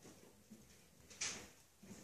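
Faint handling noise: a brief soft rustle about a second in, as a stack of printed paper notes is lowered and put aside.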